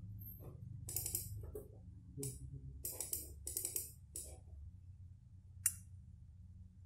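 Irregular light clicks of a computer mouse and keyboard, a few in quick succession, over a steady low hum.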